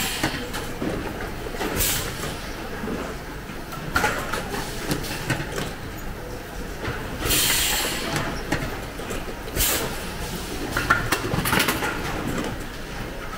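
Assembly-line workshop noise: a steady background of machinery with irregular knocks and clatter of lamp parts and trays being handled, broken by several short bursts of hiss.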